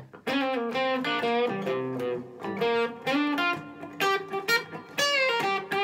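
Gibson ES-335 semi-hollow electric guitar playing a blues lick: single picked notes in short phrases with brief gaps between them, recorded on a phone's built-in microphone.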